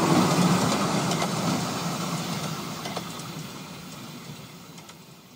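10¼-inch gauge miniature railway train running away along the track, its wheels rumbling on the rails with a few faint clicks, fading steadily into the distance.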